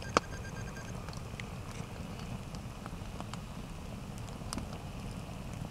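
Log campfire burning, crackling with scattered sharp pops at random intervals over a steady low noise; one louder snap comes just after the start.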